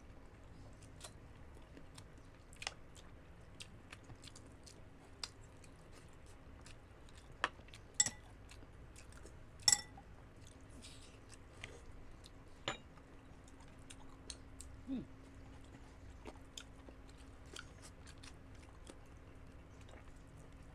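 Close-miked chewing and wet mouth clicks of people eating chicken binakol, chicken and young coconut meat in broth, with scattered crisp smacks and a few louder ones midway.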